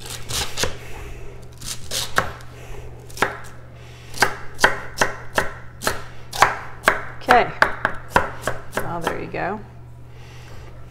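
A 240mm kiritsuke-style gyuto knife chopping celery on a cutting board: a run of crisp chops at an uneven pace, with a short lull about three and a half seconds in and the strokes thinning out near the end.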